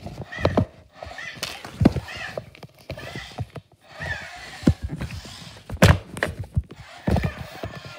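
Irregular thumps and knocks, about a dozen sharp hits, from a handheld phone camera being moved and bumped while a toy is handled, with faint short chirping tones in between.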